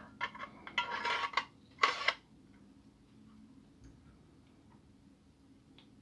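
A 2.5-inch hard drive in its adapter sled sliding into an aluminium Transcend StoreJet 25S3 enclosure shell: a click, then a second or so of metal scraping and rattling, and a short louder scrape about two seconds in as it goes home. After that only a few faint ticks.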